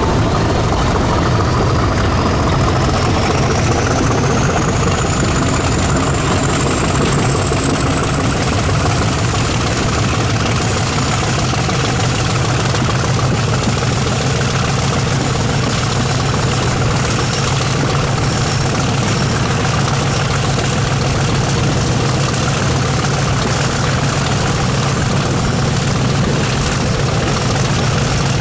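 Diesel train engine running steadily under load with a heavy low drone, while a thin high whistle climbs steadily in pitch over the first half and then holds.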